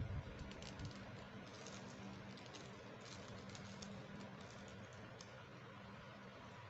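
Faint, scattered light clicks and taps of small plastic toy makeup pieces being handled, over a low steady hum.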